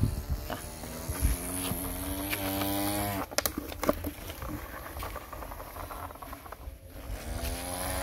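A person making a buzzing truck-engine noise with the voice, held for about two seconds and rising slightly in pitch, as a plastic toy dump truck is pushed through sand. A few sharp clicks follow, and the engine noise starts again near the end.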